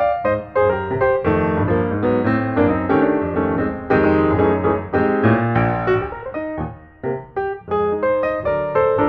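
Background piano music, many quick notes played one after another with a short pause about seven seconds in.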